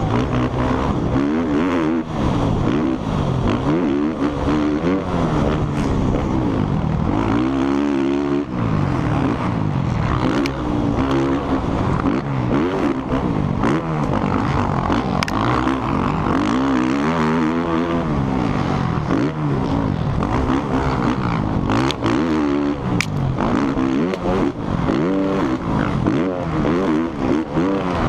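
A four-stroke motocross bike's engine at race pace, heard from the rider's helmet, revving up and falling back over and over as it is ridden hard through corners and jumps.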